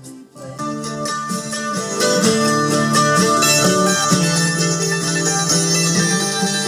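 Guitar-led music playing through a 1970s Concept 3.5 stereo receiver and its small speakers. It comes in about half a second in after a brief drop, and is louder from about two seconds in.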